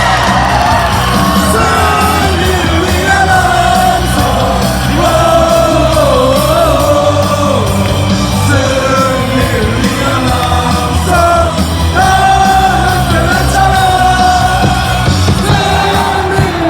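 Baseball stadium crowd singing and yelling along to loud music with a steady, heavy beat.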